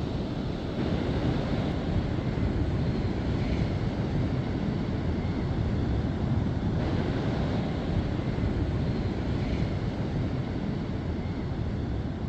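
Wind blowing over the microphone, a steady low rumble, with the wash of surf behind it.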